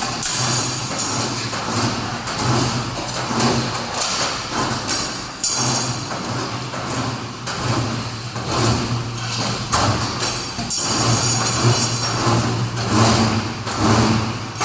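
CNC steel bar bending machine running through its stirrup-bending cycle: a low motor hum that starts and stops every one to three seconds, with repeated sharp clicks and knocks as the bar is fed and bent.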